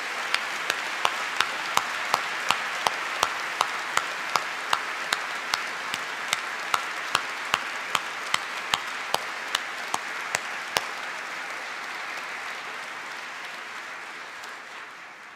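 Audience applauding, with one person's claps close to the microphone standing out sharply at about three a second until about eleven seconds in; the applause then dies away near the end.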